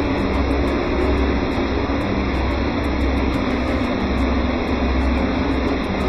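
Steady machine hum and drone of swimming-pool circulation pumps and motors running, a deep low hum with a steady mid tone over it.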